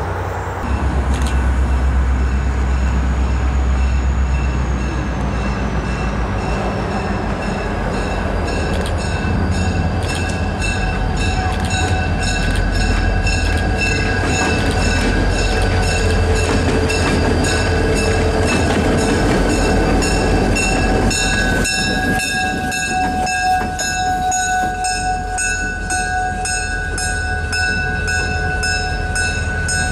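Diesel locomotive engine rumbling as the unit moves slowly along the track, with its bell ringing steadily, about two strikes a second.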